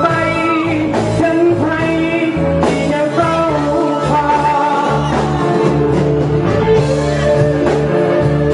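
Live band playing a rock-and-roll song, with a singer's voice over the instruments.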